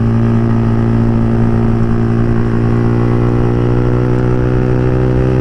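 Motorcycle engine held at a steady, unchanging speed.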